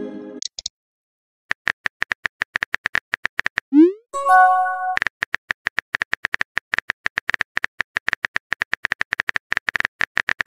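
Phone keyboard tap sounds from a texting app: rapid even clicks as a message is typed. About four seconds in, a short rising swoosh and a chime of several notes mark a message being sent, and the rapid typing clicks then resume.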